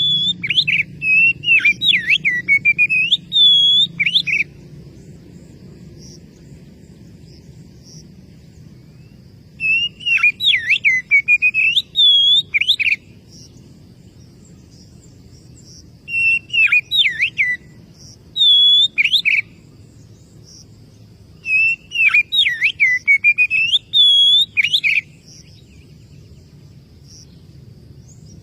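Oriental magpie-robin (kacer) singing loud whistled phrases of rapid rising and falling notes. Each phrase lasts three to four seconds and comes four times with pauses of several seconds between. This is the song used to call out and provoke rival males.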